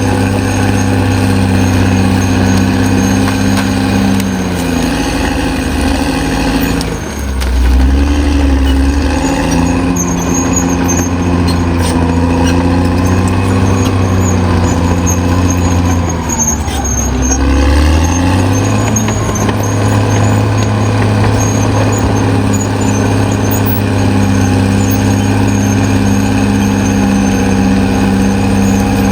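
Caterpillar D6R XL bulldozer's diesel engine running hard. Its note sags twice as it lugs under load, about four seconds in and again around sixteen seconds, each time climbing back to a steady pitch.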